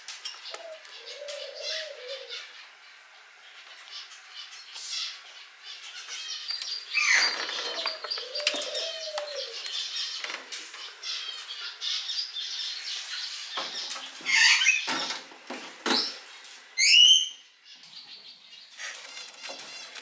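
Young cockatiel calling again and again with short chirps and scratchy calls, the loudest of them near the end, including one loud falling call.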